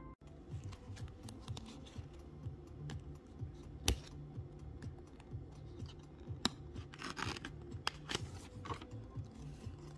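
Plastic trading-card sleeve and holder handled in the fingers: scraping, rustling and small clicks as a Pokémon card is worked in the sleeve, with one sharp click about four seconds in.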